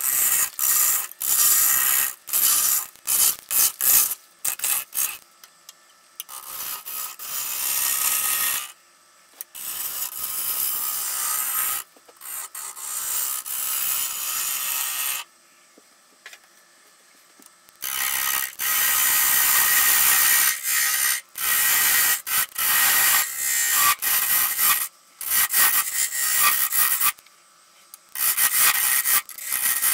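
Hand-held turning tools cutting a spinning log blank on a wood lathe. Early on the tool meets the uneven, bark-covered surface in many short, rapid bursts of scraping. Later, on the rounded blank, the cuts run in longer, steadier stretches with sudden breaks between them.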